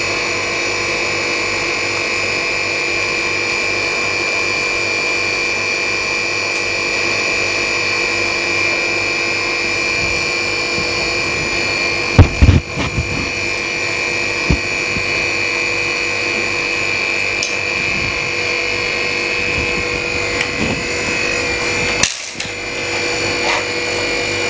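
LCD freezer machine running with a steady, even whine, chilling a cracked phone screen so its glass can be separated. A sharp knock comes about halfway through and another near the end.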